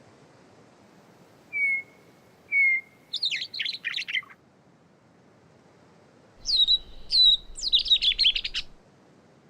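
Gray catbird singing, an individual that imitates other species: two phrases a few seconds apart, each opening with a few clear whistled notes and then breaking into a fast jumble of squeaky notes.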